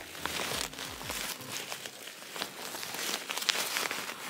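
Crinkling and rustling with scattered crackles, as hands dig through the insides of a cut-open doll.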